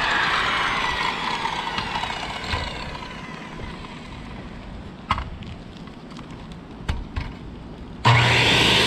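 Bosch circular saw cutting a vent hole through roof shingles and decking: the blade winds down with a falling whine after a cut, a few sharp knocks follow, and near the end the saw is started again and runs loud and steady.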